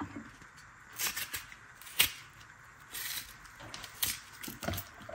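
Kitchen knife cutting a bell pepper held in the hand: a few short, sharp clicks and snaps, roughly one a second.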